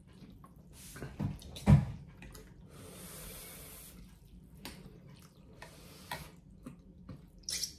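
People eating noodle soup: wet slurping of pho noodles and broth, twice in longer hissing stretches, with forks and spoons clicking against ceramic bowls. A sharp knock, the loudest sound, comes a little under two seconds in.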